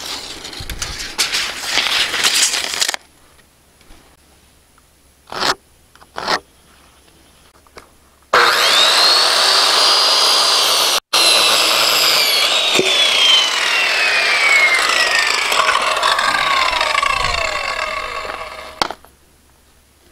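Handheld circular saw starts about eight seconds in and crosscuts a wooden baseboard on sawhorses, then its blade coasts down with a whine that falls steadily in pitch until it stops about a second before the end. Before the saw, a few seconds of scratching as the cut line is marked, and a couple of short knocks.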